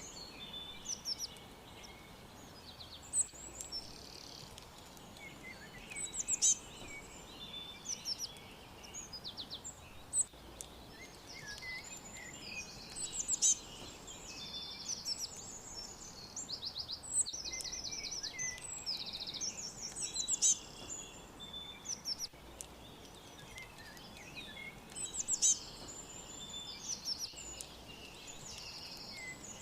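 Several small birds chirping and singing, in repeated bursts of fast high trills and short calls every few seconds, over a steady low background hiss.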